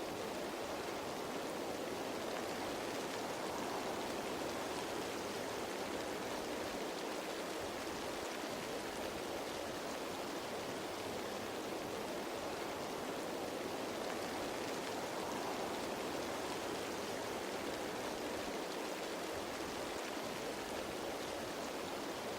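Steady rain falling on leaves, a dense, even patter with no single drops or other sounds standing out.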